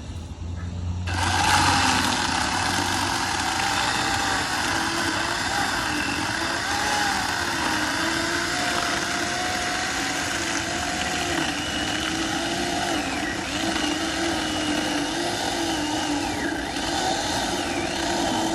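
Electric chainsaw motor switched on about a second in and running at a steady, slightly wavering pitch, then winding down with a falling pitch near the end as the trigger is let go.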